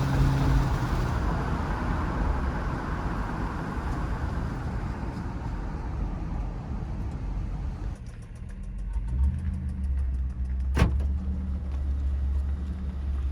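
Ford Crown Victoria's 4.6 L V8 engine running with a rough, full-range exhaust noise. About 8 seconds in it changes to a steadier, lower idle hum with a faint fast ticking and a single sharp click a few seconds later; this later idle is the quiet one.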